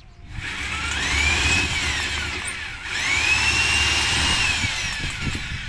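Power drill run twice, each time spinning up in pitch, holding speed, then winding down.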